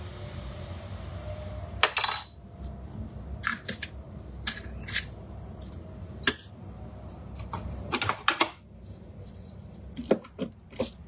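Utensils clinking and tapping against the stainless-steel bowl of a countertop cooking machine: a metal measuring spoon knocked on the bowl, then a wooden spatula stirring and knocking inside it near the end. Sharp, separate clinks over a low steady hum.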